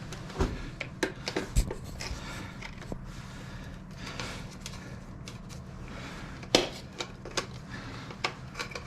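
Scattered clicks, taps and light metallic clatter of hand tools and small metal parts on a motorcycle as the turn signals and tail light are being taken off, with one sharper knock about six and a half seconds in.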